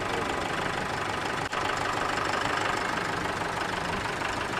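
Mahindra 4500-series 50-horsepower diesel tractor engine running steadily at idle.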